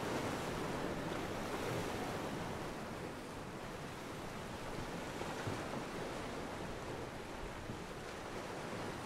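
Steady wash of surf and wind, with no distinct calls or other events standing out.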